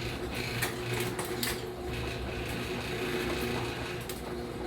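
Chain-drive garage door opener running: a steady motor hum with the chain and door rattling as the door travels, on a test run after the loose drive chain was tightened.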